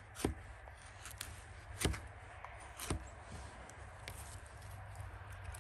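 Fiskars hatchet splitting small sticks of dry, seasoned wood into kindling: three sharp cracks of the wood in the first three seconds, with fainter ticks and clicks between and after.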